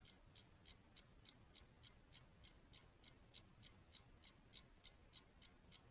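Clock ticking faintly and evenly, about three ticks a second.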